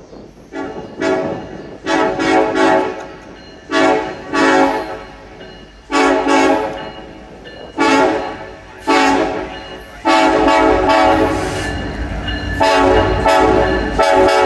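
Union Pacific locomotive air horn sounding a string of short, irregular blasts, several notes at once, then from about ten seconds in one long, near-continuous blast. A low rumble from the train rises under the horn in the last few seconds.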